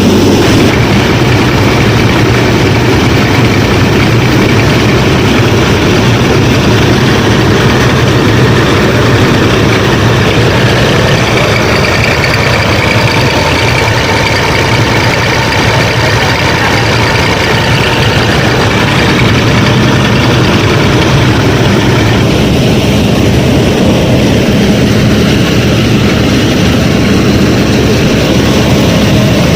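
A motor-driven machine running steadily with a loud, even engine-like drone and hum, which holds without a break.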